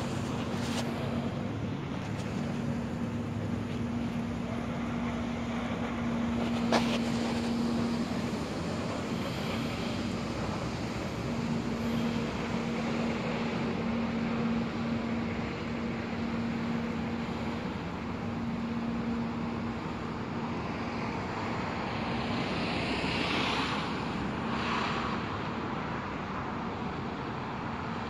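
Roadside traffic noise: a steady rumble of road vehicles with a low, steady engine hum that comes and goes. A single sharp click about seven seconds in, and a vehicle going by near the end.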